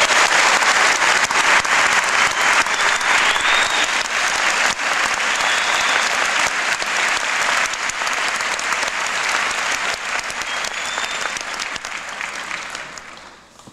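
Large audience applauding in welcome, dense clapping that fades away near the end.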